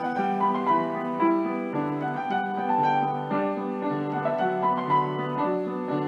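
Piano music playing a flowing run of notes over held chords.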